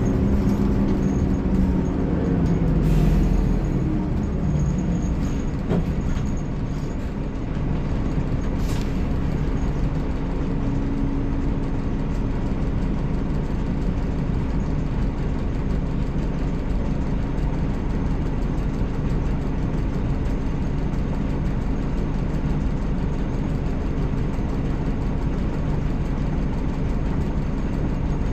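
Scania K360IB bus's DC13 inline-six diesel engine running, its pitch falling over the first few seconds, then settling to a steady drone. A short hiss of air about three seconds in, and a fainter one near nine seconds.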